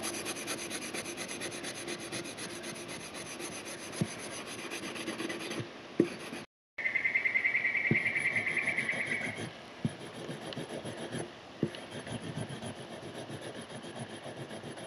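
Rubber-bonded abrasive rust eraser (Sabitoru) scrubbing surface rust off a Puma knife's steel blade in fast back-and-forth strokes: a dry rasping rub with a few light taps. The sound drops out briefly about six seconds in, then comes back louder and higher-pitched for a few seconds before settling again.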